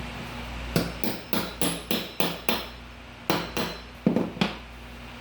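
Hammer blows, about three a second, a run of seven and then four more after a short pause, striking a pry bar to work it in under tongue-and-groove laminate floor planks.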